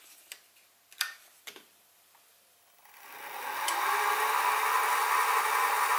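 A few light clicks, then the Sieg SX2P mini mill's spindle starts about three seconds in, its motor winding up to speed over about a second and then running steadily.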